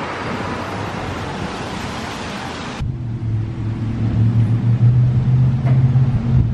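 A steady rushing outdoor noise. About three seconds in it cuts abruptly to a steady, louder low mechanical hum with a deep drone.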